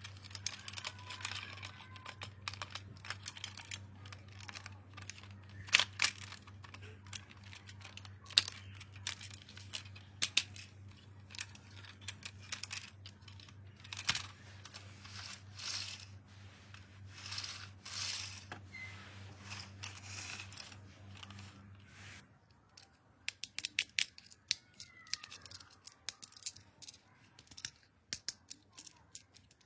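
Toy packaging being opened and handled by hand: tearing and crinkling with many sharp clicks and taps, over a low steady hum that stops about two-thirds of the way through. After the hum stops there are only sparse light clicks.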